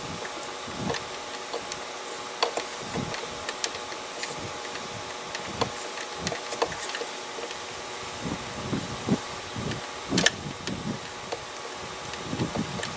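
Scattered light clicks and taps of a metal socket, extension and swivel being worked down a spark plug hole to get at a spark plug socket stuck in it, with one sharper click about ten seconds in. A steady hum sits underneath.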